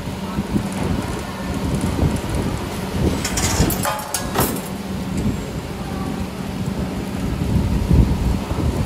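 JTC 3D-8 CNC 3D wire-bending machine running while bending 7.0 mm wire: a steady low hum with rumbling, and a brief burst of hissing, clattering noise about three seconds in.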